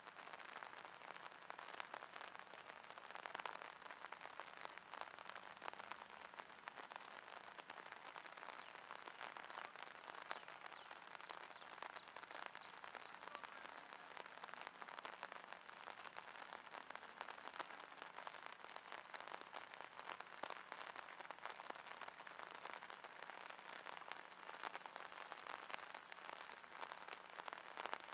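Faint, steady rain pattering on the water of a drainage ditch, a dense fine crackle of drops.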